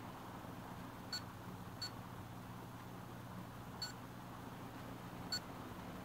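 Four short, high-pitched beeps at uneven intervals from an HP Pavilion dv7-2206TX laptop's hard drive, not its speakers. The beeping is the sign of a failing hard drive.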